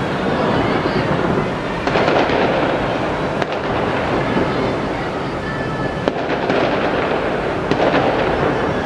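Fireworks display: a steady rumble of many overlapping bursts and crackles, with sharper bangs standing out about two, three and a half, six and eight seconds in.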